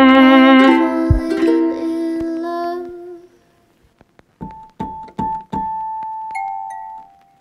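Background music: a piece with held notes ends about three seconds in, and after a short pause slow, single piano notes begin, each fading out.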